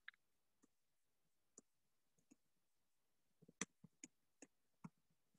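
Faint keystrokes on a computer keyboard as text is typed: scattered single clicks, coming quicker and a little louder about three and a half seconds in.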